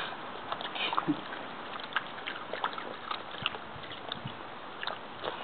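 Small dogs lapping and nosing at crushed ice in a stainless steel bowl of water: irregular splashes, with small clicks as the ice knocks about.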